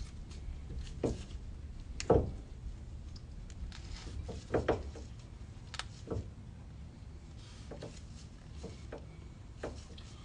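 Irregular metal clicks and knocks from a brake caliper piston compressor tool being twisted against a 2015 Chevy Silverado's brake caliper, the loudest about two seconds in. The tool is pushing the caliper pistons back in, forcing brake fluid back up the line into the reservoir.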